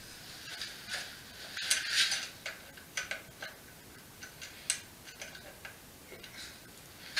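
Scattered light clicks and taps of a hand tool and the metal stem clamp being handled on an e-bike's fork, with a brief rustle about two seconds in.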